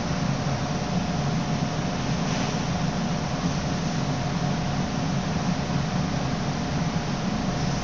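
Steady ventilation hum of a commercial kitchen: a low rumble with a faint constant tone above it.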